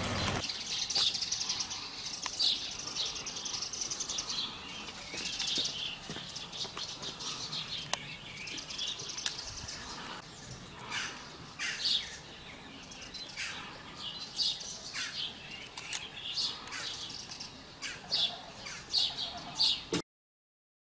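Small birds chirping, many short high calls coming in quick, irregular succession; the sound cuts off suddenly near the end.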